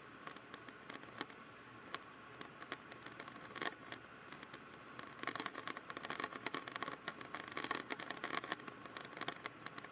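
Scratchy clicks and crackles over a faint steady hiss on the aircraft intercom audio, scattered at first and coming thick and fast from about halfway in.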